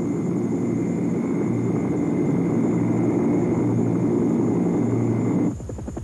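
Helicopter running close by: a steady, loud rotor and engine noise with a thin high whine. About five and a half seconds in it cuts off suddenly and music with a fast pulsing beat begins.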